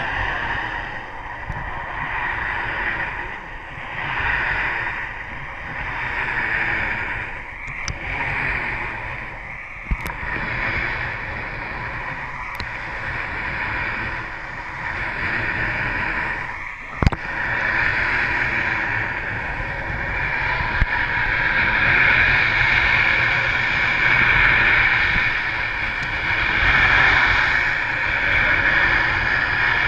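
Muffled water noise on a camera held underwater, swelling and fading every couple of seconds, over a steady hum from the boat's engine. Two sharp knocks, about ten and seventeen seconds in, the second the loudest.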